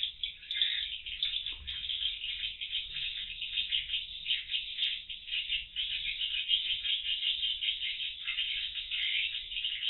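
Dense, continuous twittering of edible-nest swiftlets, many rapid high chirps overlapping without a break.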